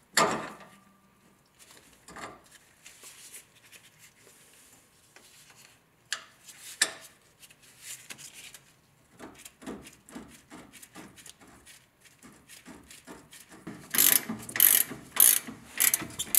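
Scattered light metallic clicks and knocks as the bolt is fitted into the Jeep's axle-side track bar mount. About two seconds from the end, a hand ratchet and socket starts clicking in quick strokes, about three a second, running the bolt in.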